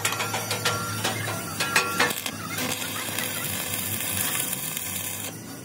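Metal clinks and knocks from tools and parts being handled, a few of them ringing briefly, over a steady low hum; from about halfway in a steady hiss sets in and stops shortly before the end.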